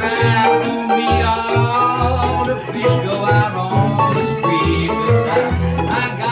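Instrumental break in a fingerpicked country blues: a tenor saxophone plays a held, wavering melody line over a resonator guitar and an acoustic guitar that keep up a steady bass pulse.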